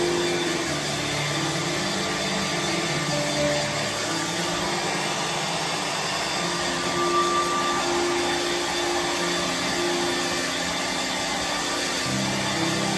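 Handheld hair dryer running steadily, blowing air onto a small dog's fur.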